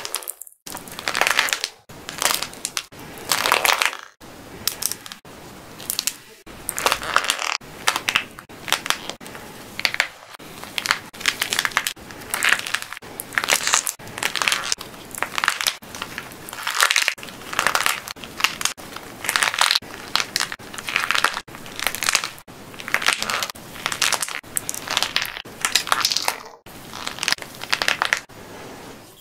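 Hardened plaster clay shell being cracked and crushed between the fingers: irregular, repeated crackling and crunching as the dry layer breaks into small flakes over soft clay.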